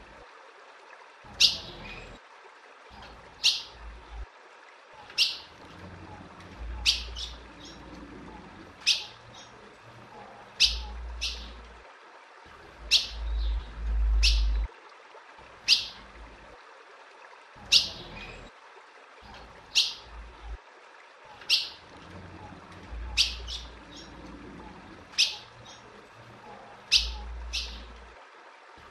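Female ultramarine grosbeak (azulão) calling over and over in short, sharp, high notes, about one every second or two, some in quick pairs or triplets. Low rumbling noise comes and goes between the calls.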